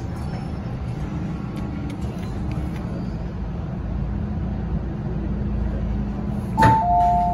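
Steady low hum and rumble inside an MTR M-train car. Near the end a click and a two-tone electronic chime ring out, the door warning that comes ahead of the 'please stand back from the train doors' announcement.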